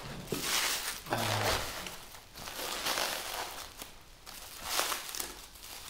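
Plastic bubble-wrap packaging crinkling and rustling as it is handled and pulled open by hand, in several uneven bursts.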